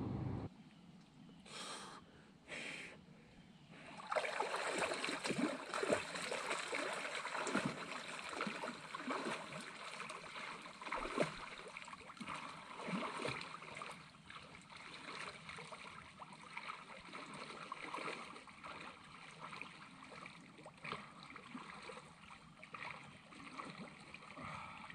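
Lake water splashing as a person plunges in and swims off, loudest for several seconds from about four seconds in, then a softer, steady lapping of small waves at the shore.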